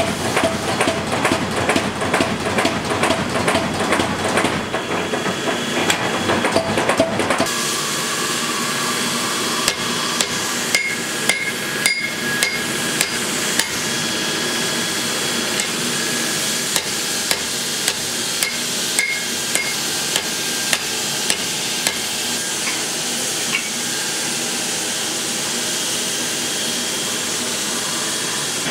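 Power hammer pounding hot leaf spring steel in rapid blows for about seven seconds. Then a hand hammer strikes the hot blade on an anvil in spaced, ringing blows, which stop about 22 seconds in. A steady hiss runs beneath.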